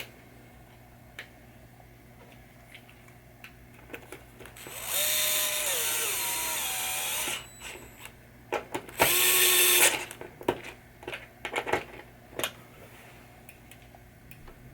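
A handheld power drill runs twice: a burst of about three seconds whose pitch drops in steps as the motor slows, then a shorter burst of about a second. Small clicks and knocks of parts being handled come between and after.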